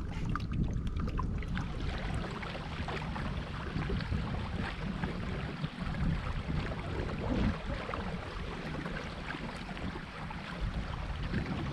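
Steady rushing outdoor noise of moving water and wind buffeting the microphone, with a light crackle.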